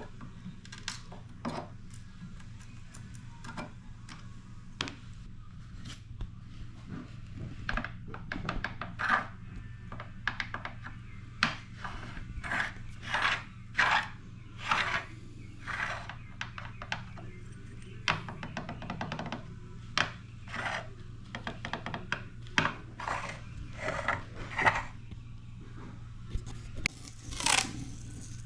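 Hand tools scraping and filing on the wooden bajo sexto in short, irregular strokes that grow busier and louder through the middle, over steady background music.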